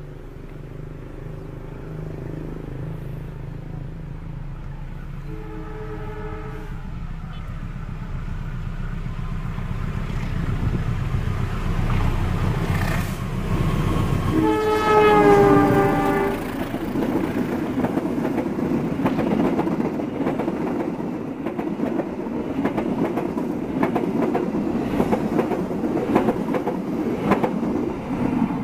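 CC 201 diesel-electric locomotive hauling a passenger train approaches with a rising engine rumble and gives a short horn blast. About halfway through it sounds a longer, louder horn whose pitch drops as it passes close by. The carriages' wheels then clatter steadily over the rail joints.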